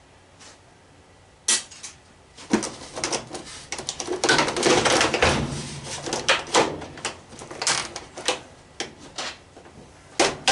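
Washing machine parts knocking, scraping and rattling as the machine is taken apart by hand: a sharp click about a second and a half in, then a busy run of irregular clatter.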